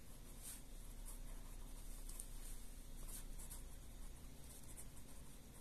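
Ballpoint pen writing on paper: faint, irregular scratching strokes as words are written out by hand.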